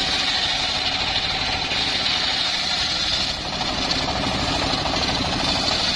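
Homemade circular sawmill ripping a large sengon (albizia) log lengthwise. Its engine runs steadily under load, with the steady high hiss of the big blade cutting through the wood.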